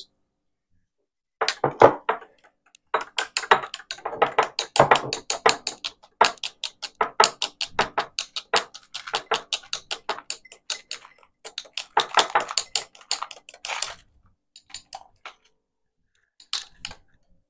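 A long spoon stirring ice cubes in a tall glass of sparkling water, clinking quickly and repeatedly against the glass and ice, then thinning to a few scattered clinks near the end.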